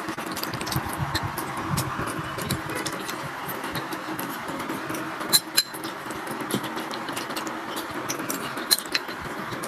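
Dishes and utensils clinking now and then, with many light ticks and a few sharp clinks, the loudest a little past halfway and again near the end, over a steady background hiss.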